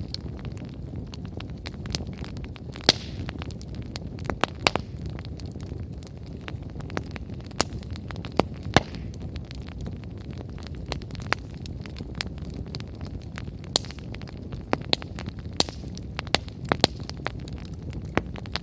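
Wood fire burning steadily, with a low roar of flames and frequent irregular sharp crackles and pops from the burning firewood, a few of them much louder than the rest.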